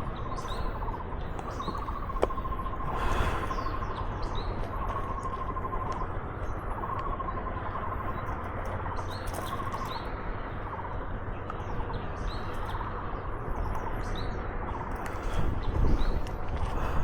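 Birds calling throughout, repeated warbling phrases and short rising chirps, over a steady low rumble of wind on the microphone. A single sharp click sounds about two seconds in.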